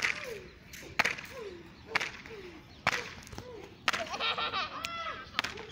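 Hand slaps landing on a boy lying on the ground, sharp cracks about once a second. Each slap is followed by a short falling cry, and there is higher-pitched yelling about four seconds in.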